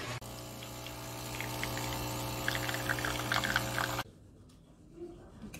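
Noodles sizzling as they are stir-fried in an electric pan, with light clicks of chopsticks against the pan over a steady electric hum. It cuts off suddenly about four seconds in, leaving quiet room tone.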